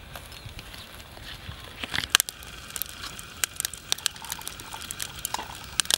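Charcoal fire with dry-grass kindling crackling: irregular sharp pops and clicks, starting about two seconds in.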